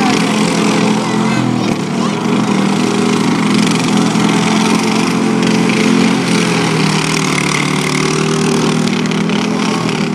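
Several riding lawn mower engines running together, their pitch rising and falling as the throttles change while the mowers shove against each other.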